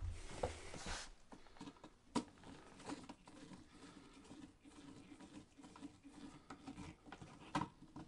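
Faint small clicks and scrapes of a screwdriver tightening the green ground screw on a light switch's metal strap, with a sharper click about two seconds in and another near the end.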